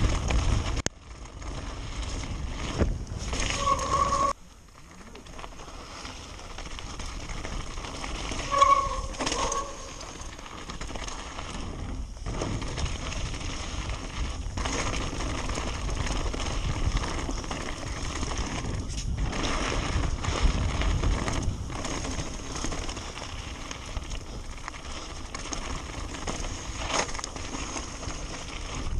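Mountain bike riding fast down a rocky gravel trail: tyres rolling and crunching over loose stones, with the bike rattling over bumps. Two short squeals cut through, about four and nine seconds in.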